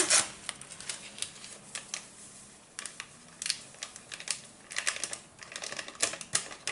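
Paper sachet of baking powder being flicked and shaken over a mixing bowl: scattered short crinkles and ticks of the paper, with a quick cluster of them about five seconds in.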